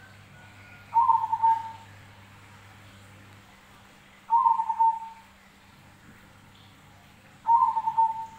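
A zebra dove (perkutut) cooing three times, about three seconds apart. Each phrase is loud and lasts under a second, with a short higher note at its start.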